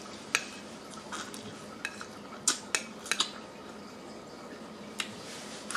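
Steak knife and fork clinking and scraping against a plate while cutting grilled steak: a scattering of sharp clicks, several close together around three seconds in.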